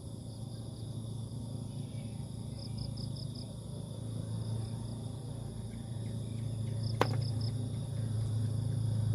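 Insects droning steadily with crickets chirping in short runs of four pulses, over a low steady hum that grows louder. A single sharp click comes about seven seconds in.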